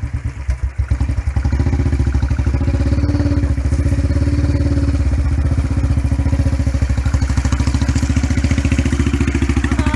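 Motorcycle engine running with a steady rhythmic exhaust pulse, growing louder about a second in.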